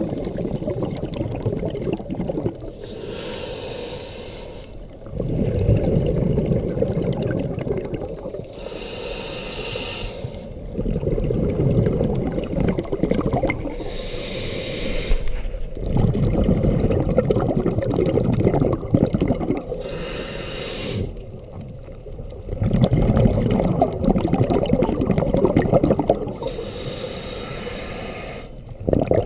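Scuba diver breathing through a regulator, heard underwater: five slow breaths, each a hissing inhale through the regulator followed by a longer, louder rumble of exhaled bubbles.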